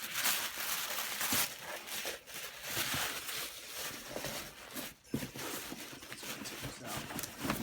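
Gift-wrap paper rustling, crinkling and tearing as it is handled and pulled open, in irregular bursts.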